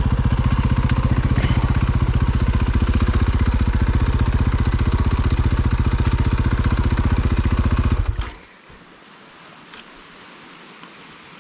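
Off-road motorcycle engine running at a steady pitch, then cutting off suddenly about eight seconds in. Afterwards only a faint hiss remains.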